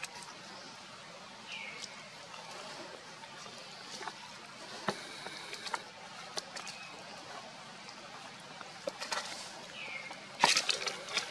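Newborn macaque giving short, high squeaks that drop in pitch, about a second and a half in and again near the end, among soft scattered clicks. A louder crackling rustle starts just before the end.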